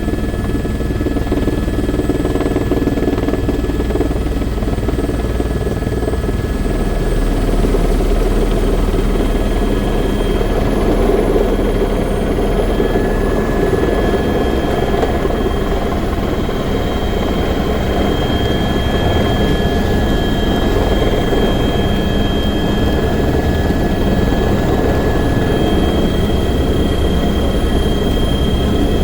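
Helicopter running steadily in flight: a constant rotor and engine rumble with a thin high turbine whine over it.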